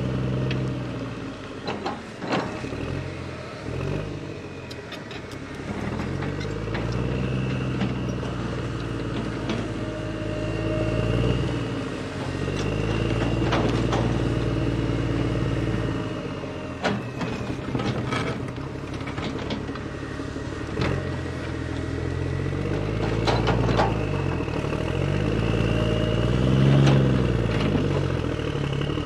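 Wired-remote toy excavator's small electric motors and plastic gears whirring. The pitch rises and falls over and over as the arm and bucket move, with scattered clicks.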